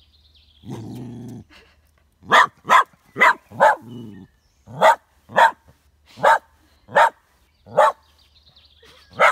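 Small Westie terrier growling low at his own shadow, then barking sharply about ten times, the first barks in quick pairs, with a brief growl between them.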